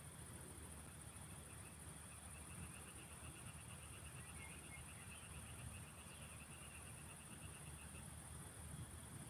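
Faint evening field ambience: a frog gives a long, fast-pulsed trill from about a second and a half in until near the end, over a steady high-pitched insect chorus and a low rumble.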